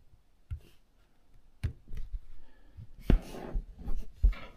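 Scattered light clicks and taps, with two short rustling handling noises about three and four seconds in, the louder of them the first.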